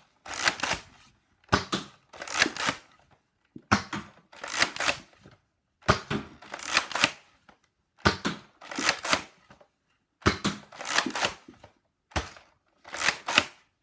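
Nerf Zombie Strike Slingfire lever-action dart blaster being cocked and fired about six times, one shot every two seconds or so, each a quick cluster of plastic clacks and the pop of the dart leaving.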